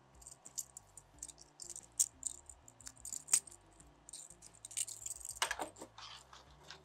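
Small metal parts of a steel banding strap kit clicking and jingling as they are handled and fitted together, with a few sharper clicks and a short rustle near the end.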